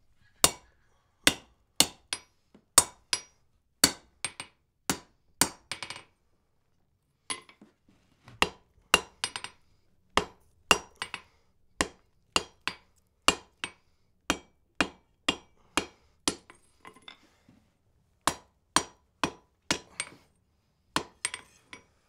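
Steady hammer blows forging hot wrought iron on an anvil, about two strikes a second, each with a short metallic ring. The hammering pauses briefly twice, about six and seventeen seconds in.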